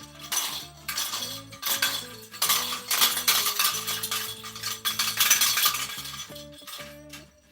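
Jingle ball bells rattling and clinking in quick, irregular jingles over background music with a steady bass line. The jingling fades out near the end.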